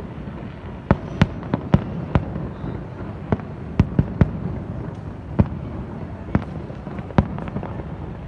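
Fireworks display: about a dozen sharp bangs of bursting shells at irregular intervals over a steady low rumble.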